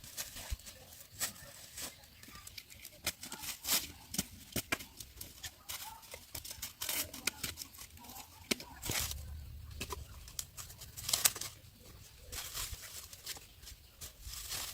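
Irregular crackling and snapping of corn plants handled by hand: dry leaves and husks rustling as ears are snapped off the stalks. A brief low rumble comes about nine seconds in.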